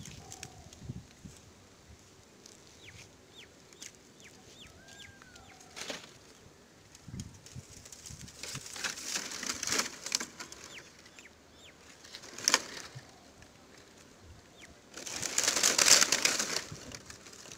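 Dry fan-palm fronds rustling and crackling as they are dragged and heaped into a pile, in a few bouts with one sharp crack, the loudest bout near the end. Small birds chirp in the background.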